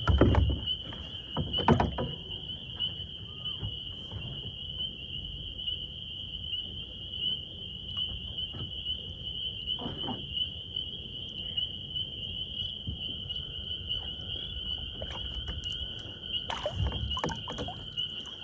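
Knocks and rattles of bowfishing gear handled aboard a kayak while a twisted, tangled line is sorted out. They come near the start, again about two seconds in, once about halfway, and in a cluster near the end, over a steady high-pitched drone.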